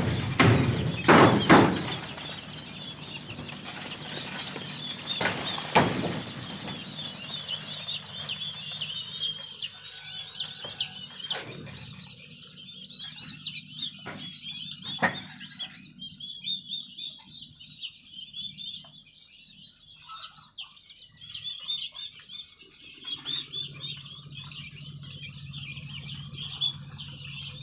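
A large flock of young poultry chicks peeping continuously, a dense high-pitched chirping. A few loud knocks come in the first two seconds and one more about six seconds in.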